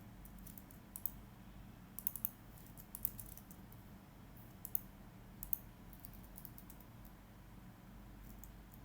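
Typing on a computer keyboard: irregular keystrokes in short bursts, stopping after about five and a half seconds, over a low steady hum.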